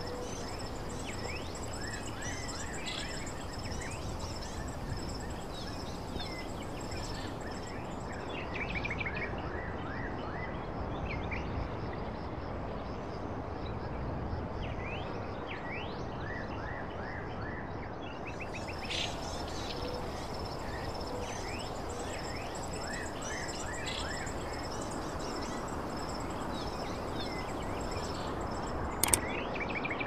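Rural outdoor ambience: birds chirping in short rising calls over a steady high insect drone and a constant background hiss. Two sharp clicks come near the end.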